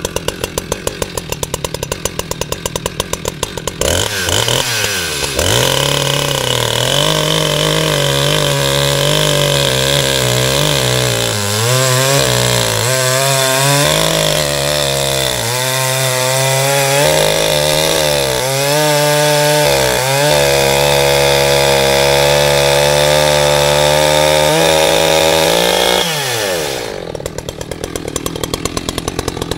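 Echo CS-620PW two-stroke chainsaw idling, then throttled up about four seconds in. It runs at high revs with its pitch wavering up and down as the chain cuts into a tree stump, then drops back to idle near the end.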